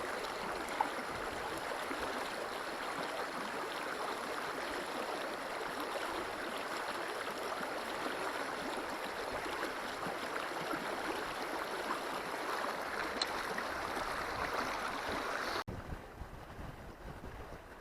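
River water rushing steadily over a riffle. Near the end it cuts off abruptly, leaving a quieter low rumble of wind on the microphone.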